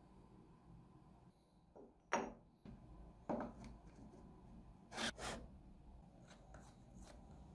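Handling noise as a metal clamp ring is fitted onto the body of a Makita trim router: a few separate knocks and scrapes of metal against the router's housing, about two seconds in, just after three seconds and a close pair at about five seconds, then faint ticks as a clamping screw is put in.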